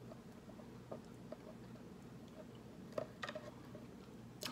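Quiet drinking through a straw from a paper cup: a few soft mouth clicks and swallows over a faint, low, steady hum.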